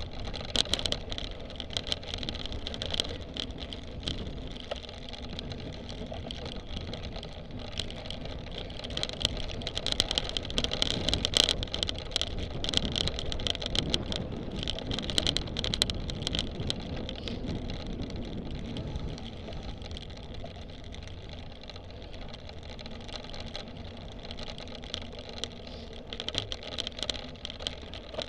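Cyclocross bike ridden hard over bumpy grass and dirt, heard from an action camera riding along: a steady rumble of tyres and wind on the microphone, with the bike's chain and frame rattling in many quick sharp clicks.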